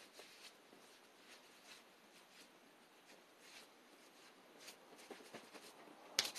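Faint rustling and handling noises, then near the end a quick, rhythmic rubbing starts: hands being wiped off.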